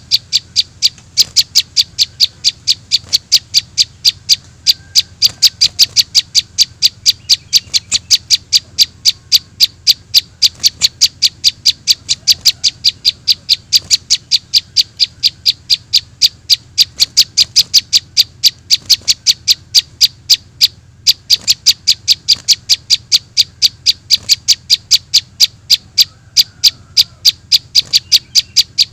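Juvenile prinia (prenjak) begging calls played as a bird-trapping lure: a fast, even run of sharp high chirps, about three or four a second, with a short break about two-thirds of the way through.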